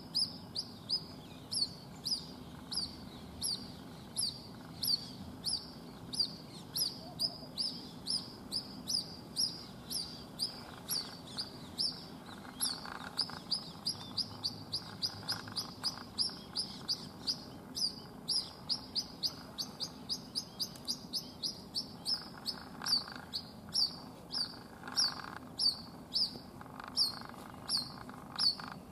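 White-breasted waterhen chick giving a high, thin peep over and over, about two to three a second, each note falling slightly in pitch. It is the non-stop call of a chick separated from its mother.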